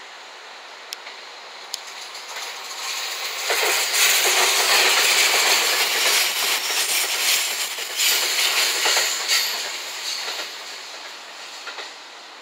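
JR West 227 series electric train, a four-car local, passing close by: the sound of its wheels on the rails builds over a couple of seconds, stays loud for about five seconds with repeated clacks as the wheels cross rail joints, then fades as the train moves away.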